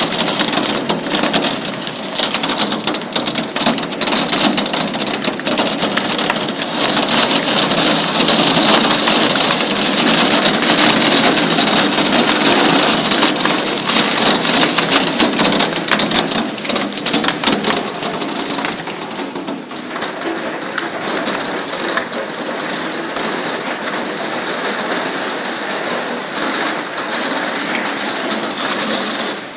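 Hailstones pelting down in a heavy hailstorm, a dense clatter of countless small impacts. It is heaviest in the middle and eases somewhat in the second half.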